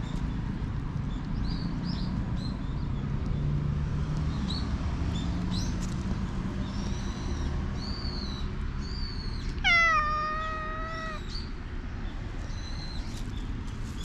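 A black cat meows once, about ten seconds in: one long call that starts higher, drops, then holds its pitch.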